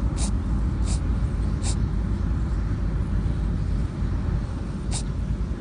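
A rabbit sneezing: four tiny, sharp sneezes, three in quick succession in the first two seconds and one more about five seconds in, over a steady low rumble.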